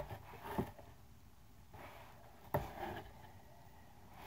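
Quiet handling noises from a subscription box being opened, with one sharp snap or tap about two and a half seconds in.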